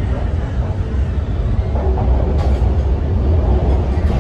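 Inside an MTR C-Train subway car pulling out and gathering speed: a steady low rumble of wheels on rail that slowly grows louder, with two sharp clacks, about halfway through and near the end.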